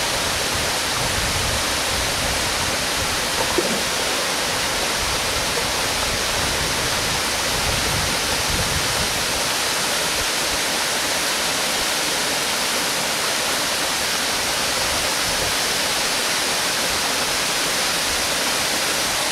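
Steady rushing of water from a waterfall and the boulder-strewn stream below it, an even unbroken hiss. A single brief click about three and a half seconds in.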